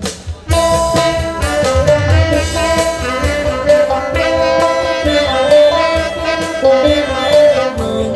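Band playing the instrumental introduction to a song: a melody of held notes over a bass line, starting about half a second in.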